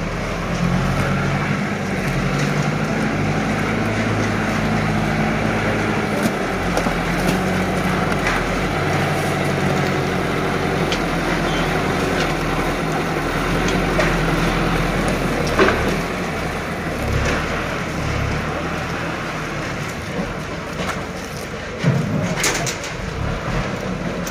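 Front-loader tractor's engine running steadily as it works its bale grab, lifting and carrying a bale of crushed plastic bottles, with its note shifting a few seconds in. A sharp knock comes about two-thirds of the way through and another near the end.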